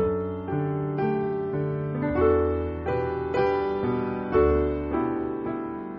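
Slow solo piano music, notes struck about twice a second.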